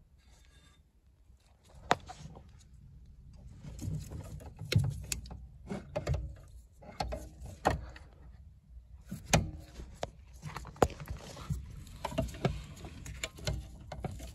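Metal pedal-box parts of a Ford Escort Mk3 being handled under the dashboard: irregular sharp metallic clicks and knocks with rustling, starting about two seconds in.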